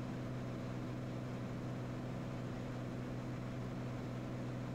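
Steady drone of a Cirrus SR22's piston engine and propeller in cruise, heard inside the cockpit: an even low hum with a light hiss over it.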